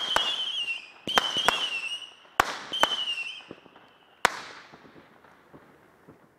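Saturn missile battery firing its final shots. Sharp pops come one after another, three of them trailing a wavering whistle about a second long, with crackle behind them. The last pop comes about four seconds in, and faint crackle fades out after it.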